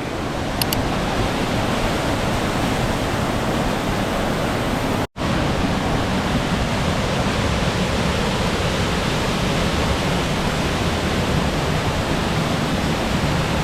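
A waterfall running high: a steady rushing of falling water. The sound drops out for an instant about five seconds in.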